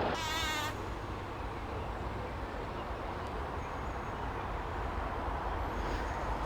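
Steady low outdoor rumble with a brief high warbling trill in the first second.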